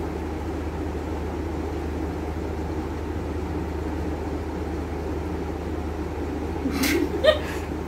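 Steady background hum and hiss, like a fan running, with a few short faint sounds and a click near the end.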